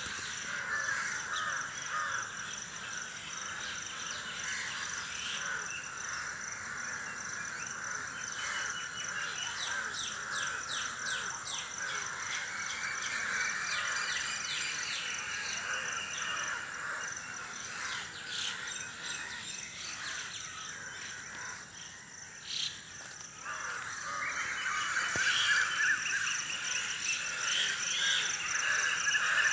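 Early-morning dawn chorus: many birds chirping and calling over one another, with rapid trills in the middle. A steady thin high whine sits under it throughout. The chorus thins briefly past the middle, then swells again toward the end.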